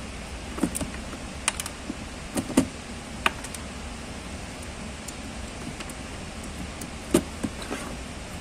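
Plastic wire connectors and wiring being handled and pushed together in a ride-on electric toy car's battery compartment: scattered small clicks and taps, with sharper ones about two and a half seconds in and about seven seconds in.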